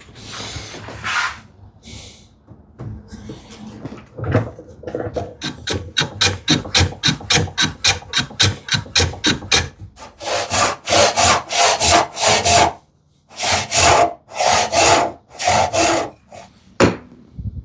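Hand saw cutting through a wooden board: quick, short back-and-forth strokes at about five a second, then slower, longer and louder strokes in two runs separated by a short pause.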